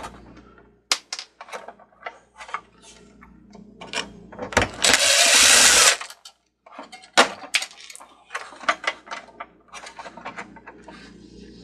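Clicks and knocks of metal and plastic parts being handled, with a cordless power driver run once, for about a second and a half near the middle, to unscrew a screw.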